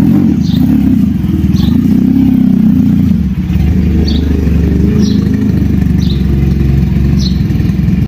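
Sport motorcycle engine idling, a steady low rumble that swells and eases slightly in the first few seconds.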